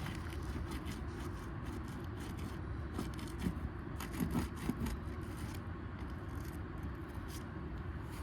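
A metal roof snake scraping and clicking under asphalt shingles as it works at the seals and nails, with a few sharper scrapes about three to five seconds in, over a steady low rumble.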